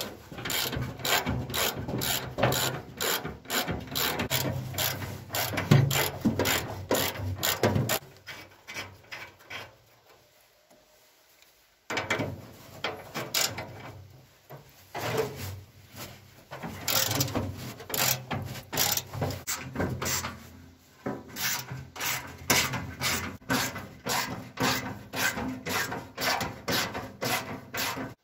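Hand ratchet wrench clicking in quick runs of about four clicks a second as bolts are worked loose on the tractor's steel body, with metal-on-metal scraping; the clicking stops for a few seconds about a third of the way in and again briefly later.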